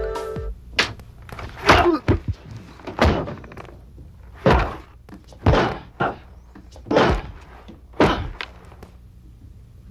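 A series of separate thuds and rustles, roughly one a second, from coveralls being pulled off and on and bodies shifting on the floor. Tinkling music breaks off about half a second in.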